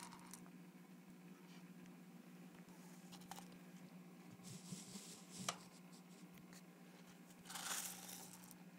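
Near silence: a faint steady low hum, with a couple of small clicks midway and a short rustling noise near the end.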